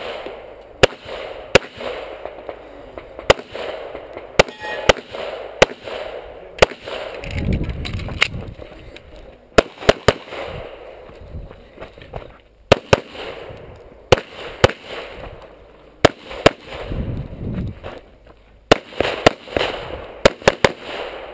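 A handgun fired close to the microphone, more than twenty sharp shots, mostly in quick pairs with short gaps between strings, during a rapid-fire practical shooting stage.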